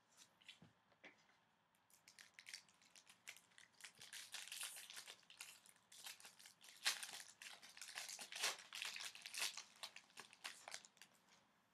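Foil trading-card pack wrapper being torn open and crinkled by hand, a dense run of sharp crackles that builds about two seconds in, is busiest in the middle and thins out near the end.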